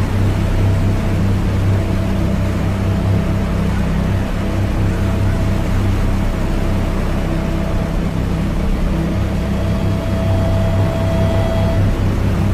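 Lo-fi dungeon synth music: a low, rumbling synthesizer drone with a held higher note that comes and goes, under a noisy hiss.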